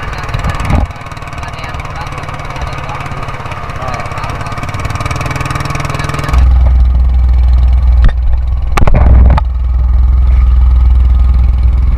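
Small wooden fishing boat's engine running steadily while underway, with water rushing along the hull. About six seconds in, a much louder deep rumble of wind and water on the microphone comes in, with a few knocks a little later.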